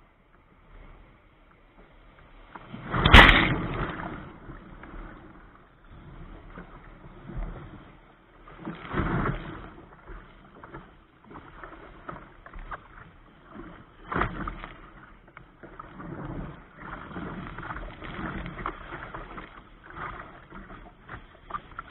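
Sea water sloshing and splashing against a kayak's bow while it moves through breaking surf: an irregular wash with a sharp, loud splash about three seconds in and further surges around nine and fourteen seconds.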